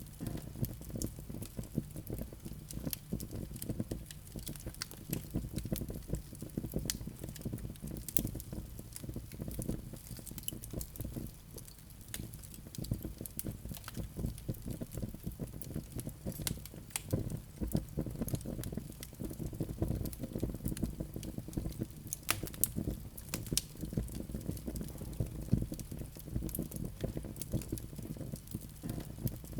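Wood fire crackling: a constant scatter of sharp pops and snaps over a steady low rush of burning logs.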